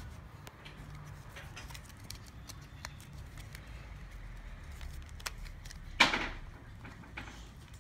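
Handling noise: light clicks, taps and rustles as a leather pouch and small items are handled, with one sharp click about six seconds in.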